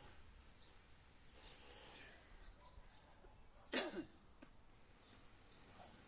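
A single sharp sneeze, a short explosive burst about two-thirds of the way in, over faint background noise.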